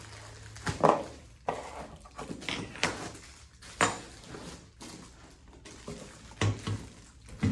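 Parts and packaging of a ceiling fan kit being handled: irregular knocks, clinks and rustles as pieces are picked up and set down.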